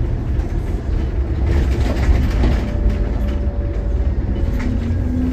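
Alexander Dennis Enviro400 double-decker bus heard from inside while driving: a steady low rumble of engine and road, with light rattles and clicks from the body and fittings and a faint whine through the middle.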